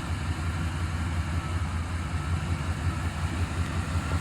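1992 Buick Roadmaster wagon's V8 idling, a steady low rumble.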